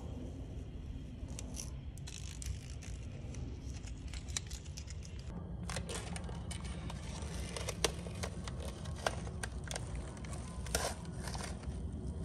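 Blue painter's masking tape being peeled off by hand with quick crackling rips, along with the crinkle of plastic masking sheeting. The rips start about two seconds in and come faster and more often in the second half.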